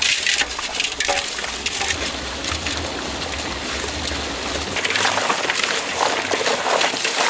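Raw snakehead murrel fish pieces being washed and turned over by hand in a large aluminium pot: wet squishing and clattering of the pieces against the metal, over a running stream. The clatter grows denser after about five seconds.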